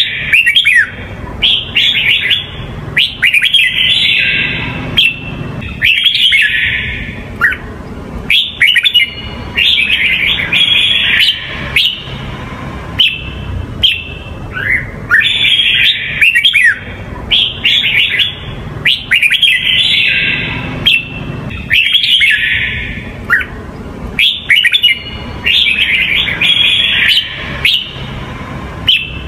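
Red-whiskered bulbul singing: short, bright, warbling phrases of quick chirps and gliding whistles, repeated every few seconds.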